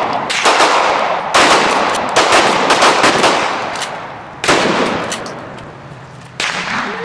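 Gunfire from several guns at once: a handgun fired close by and shotguns down the line, about eight shots at irregular intervals, each followed by a long echoing tail.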